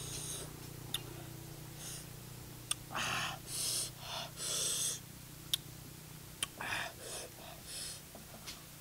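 A man's sharp hissing breaths sucked in and out through the mouth, several in a row, the reaction to sour lime dipped in hot chili paste, with a few sharp mouth clicks between them over a low steady hum.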